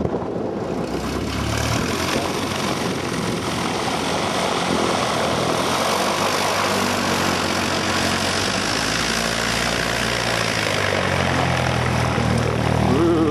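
Light aircraft's piston engine and propeller running, a steady drone whose engine tone grows stronger over the last several seconds.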